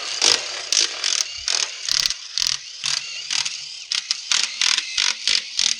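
Power ratchet running out the 10 mm bolts that hold a transfer case's halves together: a steady whir broken by many short, louder spurts.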